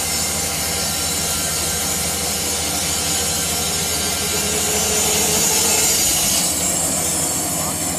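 Sawmill machine running and cutting through wood: a steady, loud, hissing saw noise over a low motor hum, growing louder for a moment about five to six seconds in.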